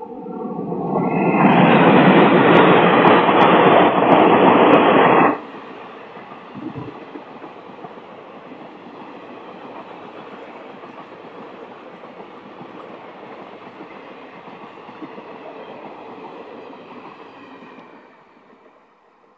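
WDG3A diesel locomotive hauling an express of ICF coaches passing close by at speed. A horn note sounds at the very start, then the locomotive is very loud for about five seconds, with a few sharp clicks, and cuts off abruptly. The steady rumble and clatter of the coaches going by follows and fades out near the end.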